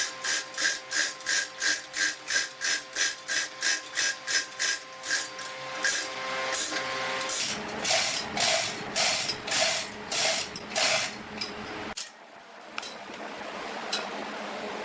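Rhythmic back-and-forth scraping of a hand tool on wood, about three strokes a second over a steady machine hum. About seven seconds in the strokes slow to about two a second, and after about twelve seconds only a steadier machine noise remains.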